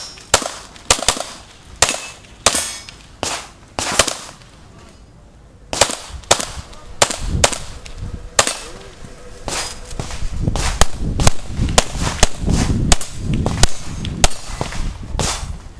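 Pistol shots fired in quick strings during a practical shooting course of fire, with a short pause about four and a half seconds in. The shots come closer together in the second half, over a low rumble.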